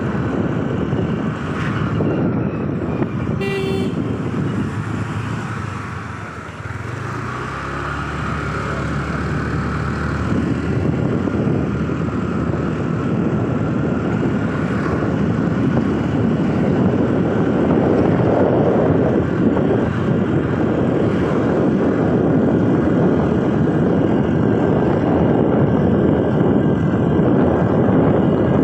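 Wind and road noise from a Honda scooter riding along, with a short horn toot about three and a half seconds in. Around seven seconds in the engine note rises as the scooter picks up speed, and the wind noise grows louder from about halfway on.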